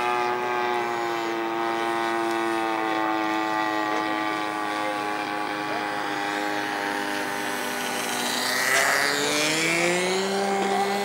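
Piston engine of a large radio-controlled scale Cessna model airplane droning in flight. Its pitch sinks slowly, then climbs about eight seconds in, where it briefly grows louder.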